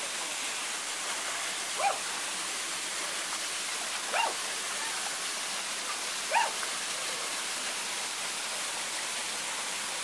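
Steady rush of a waterfall pouring into a shallow pool, with three short high-pitched cries from a young child about two, four and six seconds in.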